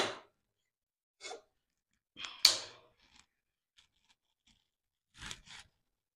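Handling noise from a tripod stand being assembled: short rustles and clicks of its parts being fitted and screwed together at the top of the pole. A scrape with a sharp click about two seconds in is the loudest, then a few faint ticks and two quick rustles near the end.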